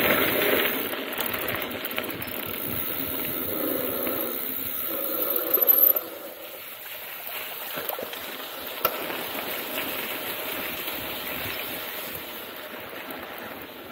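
Mountain bike tyres rolling over a wet, muddy trail with a steady noise of water and tyre hiss. It is louder for about the first six seconds, then drops to a quieter run, with a single sharp click a little under nine seconds in.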